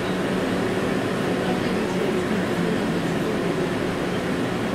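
71-631 (KTM-31) tram running along its track, heard from inside the driver's cab: a steady rolling noise with a constant low hum.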